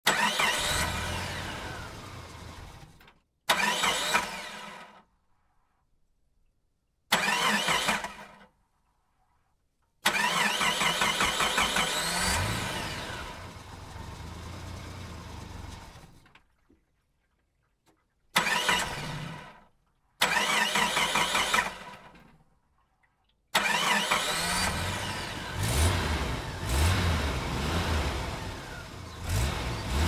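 A string of engine start-ups, about seven in all, each cutting in suddenly with the engine catching and revving up in a rising pitch, then dying away, with short silences between. The last runs on with a pulsing, uneven low rumble as the engine is revved.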